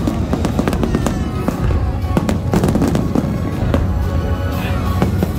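Fireworks going off: many sharp bangs and crackles in quick succession, with music playing underneath.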